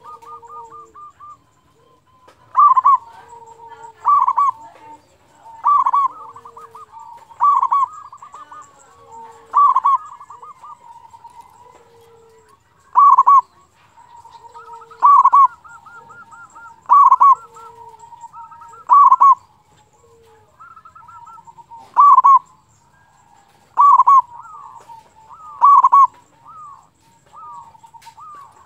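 Local zebra dove (perkutut) in full song: repeated phrases of soft, rapid rolling notes, each capped by a loud ringing coo, about every two seconds with a couple of short pauses.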